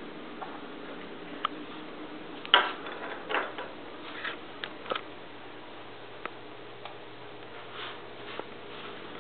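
Scattered light clicks and taps at irregular intervals, the loudest about two and a half seconds in, over a steady faint hum.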